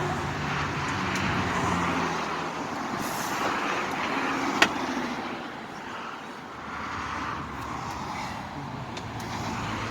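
A motor vehicle running steadily amid road traffic noise, with one sharp click about four and a half seconds in.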